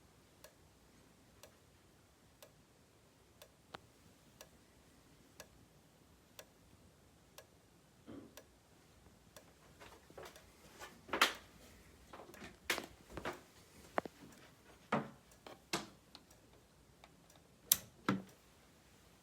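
System Sensor SpectrAlert Advance fire alarm strobe ticking faintly about once a second, one tick with each flash. About halfway through, louder irregular clicks and knocks join in.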